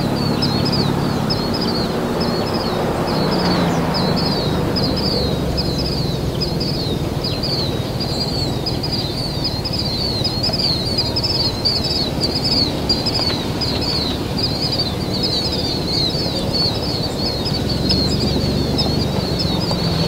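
Birds chirping rapidly and continuously, short high chirps repeating several times a second, over a steady low rushing background noise.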